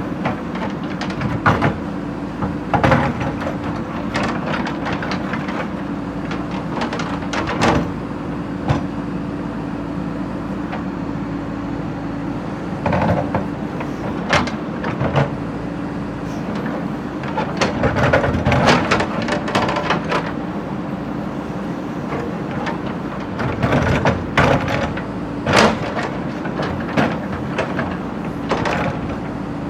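JCB backhoe loader's diesel engine running steadily, with the bucket scraping and knocking against broken brick and stone in irregular bursts.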